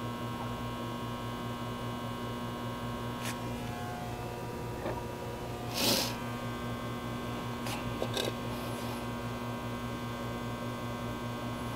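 Steady electrical hum, with a few light clicks and a brief rustle about six seconds in as the laser level on the floor is handled.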